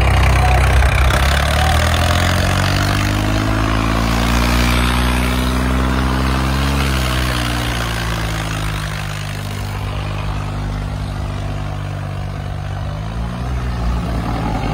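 Tractor diesel engine revving: its pitch climbs steadily for several seconds, drops back about seven seconds in, then rises again near the end.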